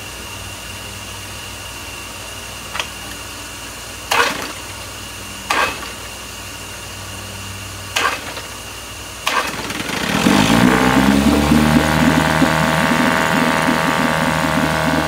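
1972 Johnson 6 hp two-stroke outboard being pull-started with its lower unit in a tank of water: several short yanks of the starter cord, then it catches after about nine seconds, revs up briefly and runs steadily and loudly.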